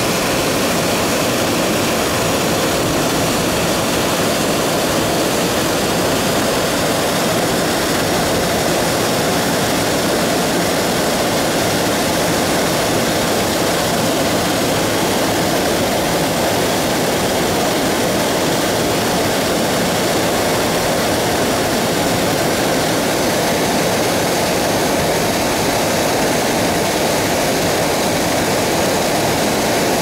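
Steady, loud rush of a mountain stream's water flowing over rocks.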